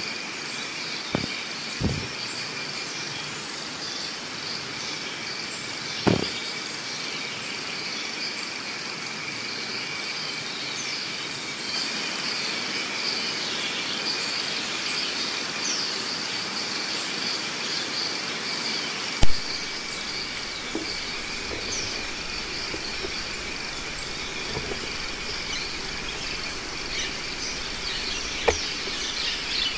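Steady high buzzing of insects at two constant pitches, with faint regular ticking above it. A few soft knocks break in, and one loud sharp knock about nineteen seconds in.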